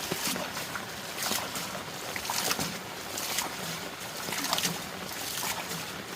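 Water splashing and sloshing over a steady hiss, in irregular strokes.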